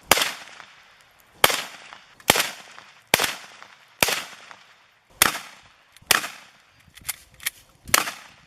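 Gunshots fired one after another, about ten in all at roughly one a second, each sharp crack followed by a short echo.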